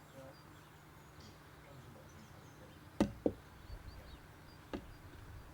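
Three sharp knocks over a faint low hum: two in quick succession about three seconds in, the third a second and a half later.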